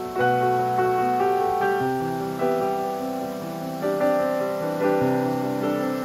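Background piano music, with new notes and chords struck about once a second.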